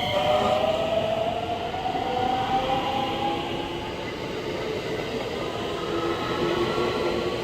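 Electric train accelerating, its traction motors whining and rising in pitch, over the steady rumble of wheels on rail.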